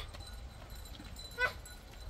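A single short animal cry about one and a half seconds in, falling in pitch.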